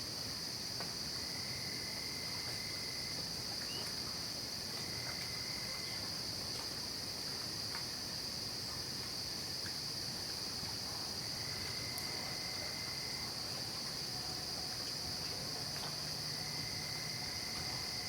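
Night chorus of crickets: a steady high-pitched trill, with a lower trill about two seconds long coming in four times.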